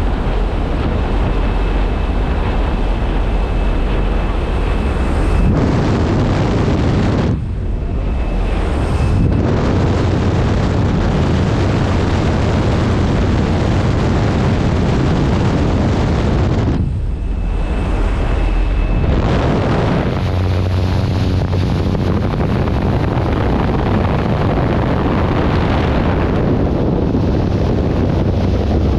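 Loud rushing wind on a skydiver's camera microphone, starting at the open door of a jump plane at altitude. The noise thins out briefly twice, about seven and seventeen seconds in.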